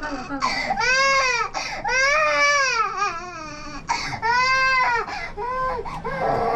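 Infant crying hard in a series of loud wails, each rising and then falling in pitch, with short breaks for breath between them.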